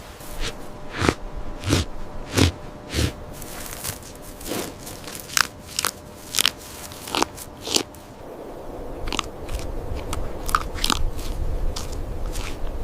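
An animal biting and chewing something crisp: sharp, irregular crunches, close together in the first few seconds and sparser later, over a faint steady hum.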